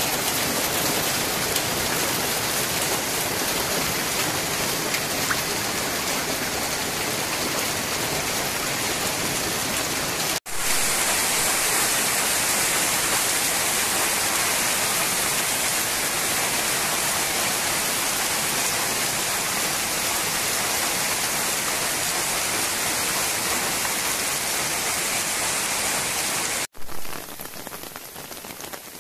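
Hail falling heavily: a dense, steady patter of hailstones striking the ground. The sound breaks off sharply twice, about ten seconds in and near the end, and after the second break it is much quieter.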